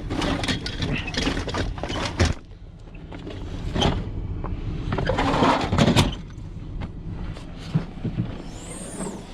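Scrap metal and junk being handled: a run of knocks, rattles and scraping, busiest in the first couple of seconds and again around the middle. A low rumble runs underneath.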